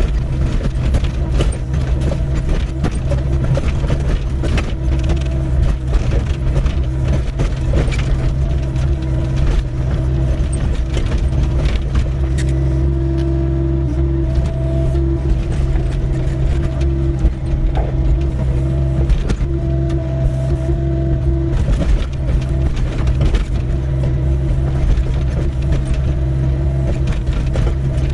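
Doosan 55W wheeled excavator's diesel engine running steadily under load, with a constant hydraulic whine. The bucket gives frequent knocks and scrapes as it digs a trench in stony ground.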